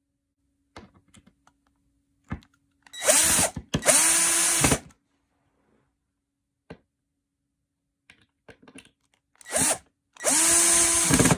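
Power drill driving screws into a laminated particleboard furniture panel, twice: about three seconds in and again near the end, each time a short burst then a longer run, the motor whine rising as it spins up and dropping as it stops. Light clicks and knocks of handling in between.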